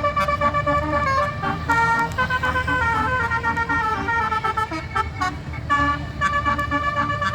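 A bus's telolet basuri musical horn playing a tune: short repeated notes, then notes stepping up and down in pitch, then repeated notes again, over the low rumble of engines and traffic.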